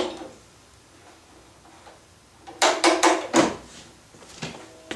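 Steel bar clamps being set on a glue-up: a quick cluster of metallic clacks and scrapes about two and a half seconds in as a sliding jaw is run along the bar and snugged down, then a couple of lighter metal clicks with a brief ringing near the end.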